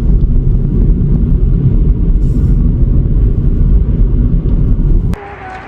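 Steady, loud low rumble of a car's road and engine noise, which cuts off abruptly about five seconds in.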